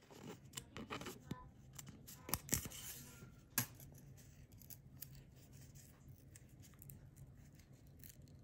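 A thin wire being pushed and worked through corrugated cardboard by hand, with the cardboard and popsicle-stick piece handled: crisp scratching and a few sharp clicks in the first few seconds, the loudest about two and a half and three and a half seconds in, then quieter rustling.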